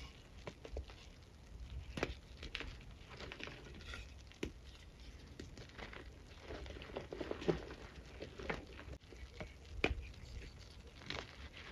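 Soft, crumbly blocks of packed white powder being squeezed and snapped apart by hand: irregular soft crunches and crackles with powder pattering down. A few sharper snaps stand out, about two, four and a half and ten seconds in.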